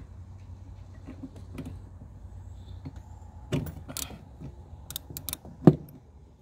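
Ratchet wrench with a 10 mm socket loosening a bolt: scattered ratcheting clicks and metallic rattles, with one sharper knock near the end, over a faint low hum.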